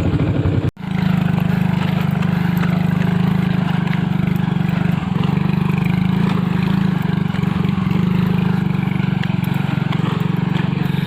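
Motorcycle engine running steadily with an even pulsing beat, briefly cut off just under a second in.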